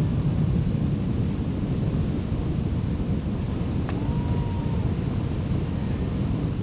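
Steady low rumble of a tow boat's engine mixed with rushing water and wind on the microphone. A short click and a brief tone come about four seconds in.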